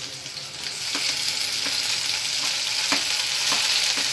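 Chopped onions sizzling in hot oil in a kadai. The sizzle grows much louder about a second in, as the onions go into the oil, and a few sharp knocks come from a spoon striking the pan.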